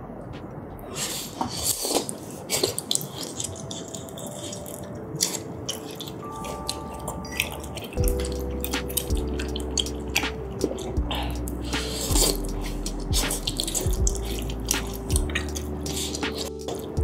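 Close-miked wet mouth sounds of eating spicy tteokbokki and glass noodles: slurping, chewing and lip-smacking clicks. Soft background music plays under it, with a bass line coming in about eight seconds in.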